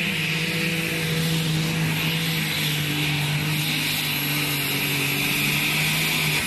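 Turbocharged engine of a John Deere unlimited super stock pulling tractor running flat out under load as it drags the weight-transfer sled down the track, a loud, steady drone. Its pitch sags slightly about a third of the way in.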